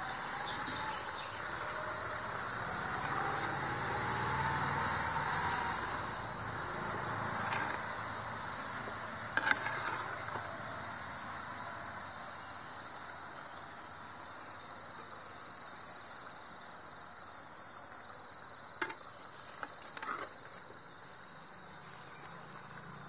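Jackfruit curry hissing and sizzling in a clay pot on a wood fire as coconut oil goes in and it is stirred, with a metal ladle clinking against the pot a few times, then again twice near the end.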